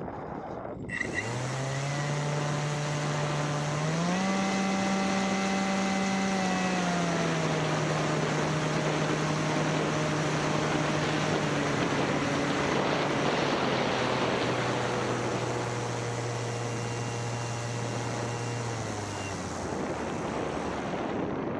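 Paramotor engine in flight, with wind and propeller rush. The engine comes in sharply about a second in, speeds up around four seconds, eases back a few seconds later, runs steadily, then stops near the end.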